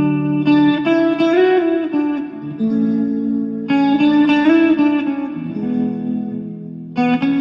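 Background music: a melody whose notes slide in pitch here and there, over held low notes.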